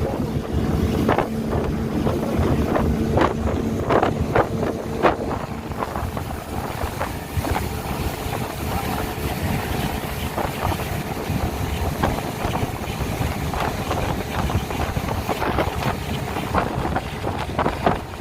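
Speedboat running at speed on the river, with heavy wind on the microphone and a steady engine rumble. Short knocks come often throughout, and a steady engine tone is heard for the first five seconds or so.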